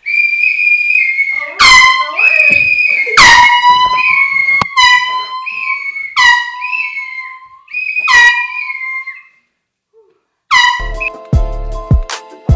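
Air horn blasted repeatedly: about half a dozen loud honks, each starting abruptly and holding a steady tone before sagging in pitch as it cuts off. Near the end, music with a heavy beat comes in.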